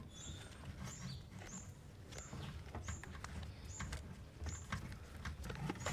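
A bird chirping faintly, short high chirps repeating about every two-thirds of a second, over light clicks from handling a camera and its case.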